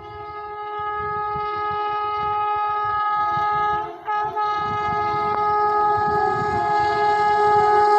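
Indian Railways locomotive air horn sounding one long, steady chord that grows louder as the train approaches, briefly broken off about four seconds in.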